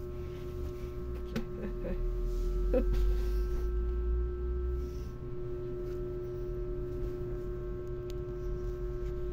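A steady, even hum holding one pitch, with low rumbling in the first half and a couple of faint short sounds about one and a half and three seconds in.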